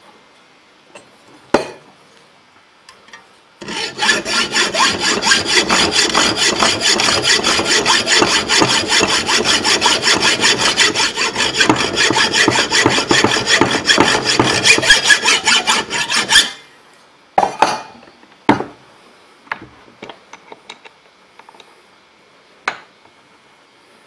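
Hand hacksaw cutting through the metal top of a spark plug held in a vise: about thirteen seconds of rapid, even back-and-forth strokes that then stop. A sharp knock comes before the sawing, and a few light knocks and clinks follow it.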